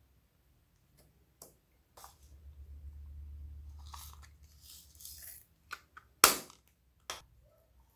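Small plastic compact case being handled: scattered light clicks and rustles, then one sharp plastic snap a little past the middle, the loudest sound, as its catch snaps.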